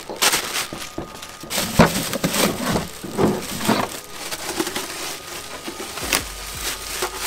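Clear plastic packaging crinkling and rustling in irregular crackles as intake parts in their bags are handled and lifted.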